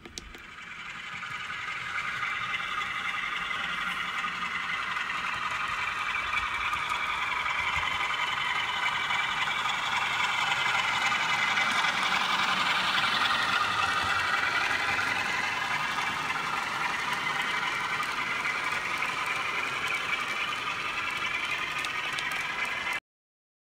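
N gauge model train, a diesel locomotive hauling coal hopper wagons, running along the track: the small motor whines with a wavering pitch and the wheels rattle on the rails. It builds over the first couple of seconds, is loudest about halfway and cuts off abruptly near the end.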